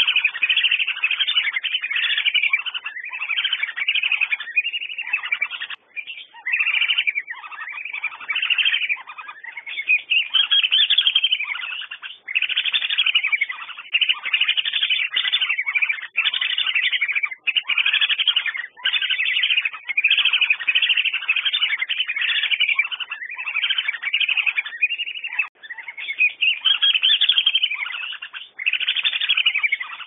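Whistling ducks (Dendrocygna) calling without let-up: many high whistled calls that rise and fall, overlapping one another, with only brief breaks.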